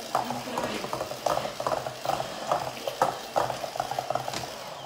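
Handheld stick blender running in a glass bowl of thick cupcake batter: a steady motor hum with uneven churning surges about twice a second as the blade works the batter. It stops near the end.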